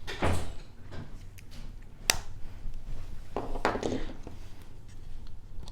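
Handling noise of a Mercedes key fob and its coin-cell batteries being put back in: scraping and rustling with small clicks, the sharpest a single click about two seconds in.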